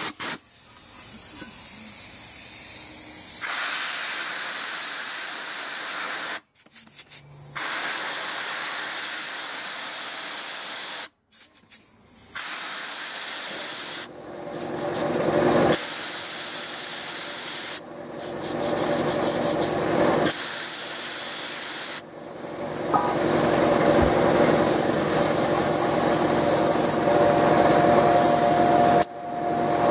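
Central Pneumatic gravity-feed sandblast gun blowing compressed air in a series of long hissing blasts, broken by short pauses as the trigger is released. The gun is not drawing sand out of the box. Partway through, the air compressor motor starts and runs under the hiss.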